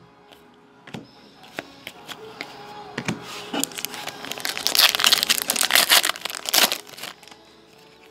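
Foil trading-card pack wrapper crinkling loudly for several seconds, from about three seconds in, as it is handled and opened. A few light clicks of cards being handled come before it.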